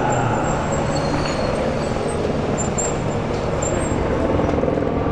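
Historic Formula 1 racing car engine running steadily, a little louder near the end.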